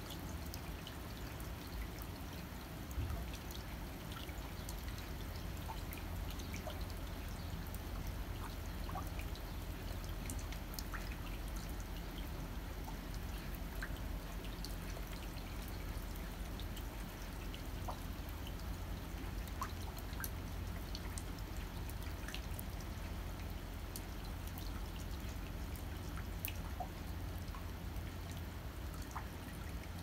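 Winter rain falling: an even hiss of rain with scattered sharp drips landing close by, over a steady low rumble.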